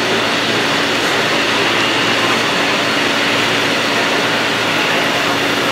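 Steady, unchanging din of a model railroad show hall with a couple of steady low hums, as an HO-scale model train runs on the layout.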